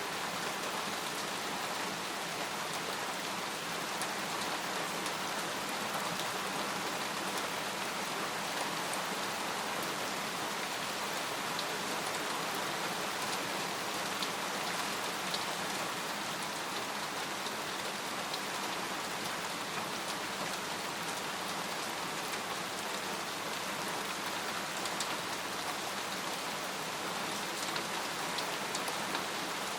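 Steady rain falling on a tent, with many small drop ticks scattered through the even hiss.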